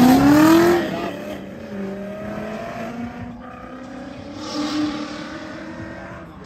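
Two drift cars in tandem passing close at high revs, their engine note rising, then running on more faintly around the track with a second swell of engine noise about five seconds in.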